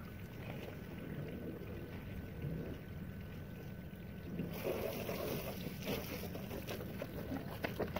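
Wind rumbling on the microphone. About halfway through, a louder rustling joins it, with a few sharp clicks.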